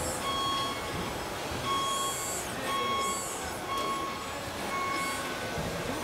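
Reversing-alarm beeps from an RC construction model's sound module, five in a row about one a second, all at the same pitch. A fainter high whine rises and falls behind them.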